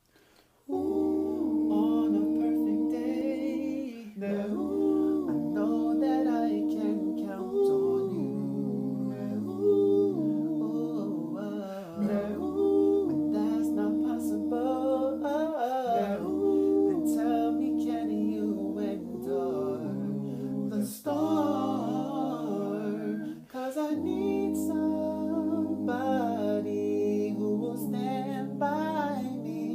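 A cappella vocal harmonies: several voices humming wordless chords over a low bass part, in held phrases that shift chord every couple of seconds, starting about a second in.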